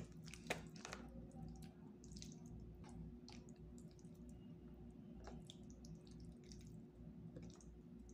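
Plastic spoon and fork scraping and clicking against food in a cardboard takeout box: faint scattered clicks, with a sharper one about half a second in, over a low steady hum.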